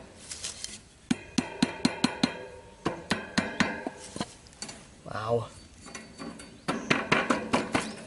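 Wire electric-fan guard clinking and rattling as hands shift and settle it over a hole in dirt, in runs of quick light metallic clicks. A short voice-like call cuts in about five seconds in.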